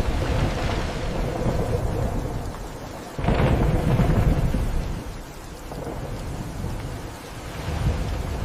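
Storm and rough-sea noise: a deep rumbling roar under a rain-like hiss. It surges suddenly louder about three seconds in and eases after about five seconds.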